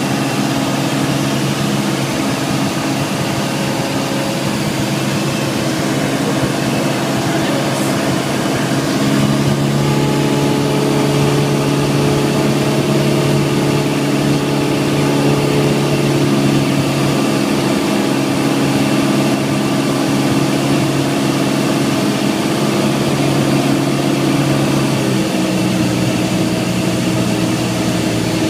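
Cessna 172S's four-cylinder Lycoming engine and propeller droning steadily inside the cabin, over a rushing hiss. The drone gets a little louder and changes pitch about nine seconds in, and changes pitch again near the end: power changes on the approach to land.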